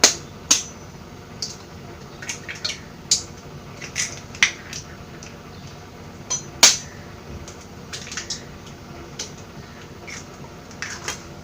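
Eggs being cracked on the rim of a bowl and emptied into it: irregular sharp taps and clinks against the bowl with wet dripping sounds, two louder knocks about six seconds apart.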